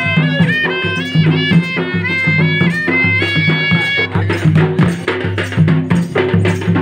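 Traditional folk dance music: a reedy wind instrument plays a bending melody over a steady low drum rhythm. About four seconds in the melody drops out and quick, dense drum strokes carry on alone.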